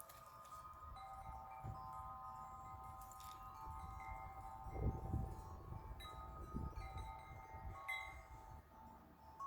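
Metal tube wind chimes ringing in strong gusting wind, several notes struck at random and overlapping as they sustain, over a low wind rumble that swells about five seconds in.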